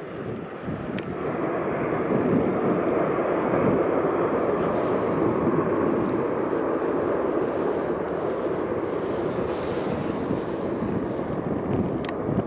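A McDonnell Douglas MD-82's two rear-mounted Pratt & Whitney JT8D jet engines running at high power in reverse thrust during the landing rollout. The dense jet noise swells over the first couple of seconds, then holds steady.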